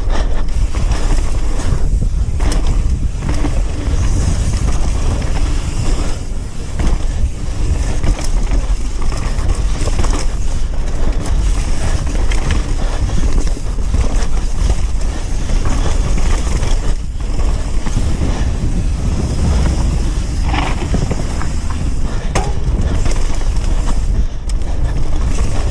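Mountain bike riding down a bike-park trail: tyres crunching and scraping over dirt and gravel and the bike rattling over bumps, with many short knocks over a steady low rumble.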